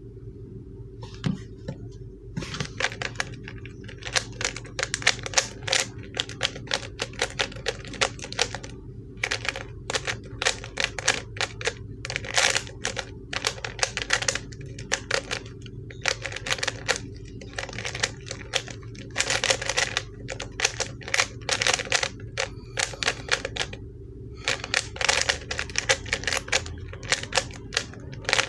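ShengShou 3x3 speed cube turned fast through a solve: rapid plastic clacking of the layers, in bursts broken by short pauses, starting about two seconds in. The cube is one the owner finds quite stiff to turn.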